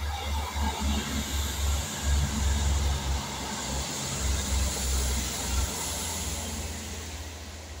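Class 159 diesel multiple unit passing over a railway bridge, its diesel engines and wheels on the rails giving a heavy rumble with a rushing hiss. It is loudest mid-pass and fades as the train moves away near the end.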